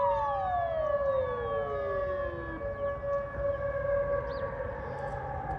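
Emergency vehicle's siren sounding an evacuation warning: several steady tones at once, with one of them sliding down in pitch over the first two or three seconds.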